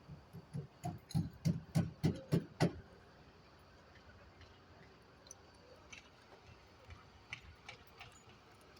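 A quick run of sharp knocks, about three a second, for roughly the first three seconds, then only a few scattered faint clicks.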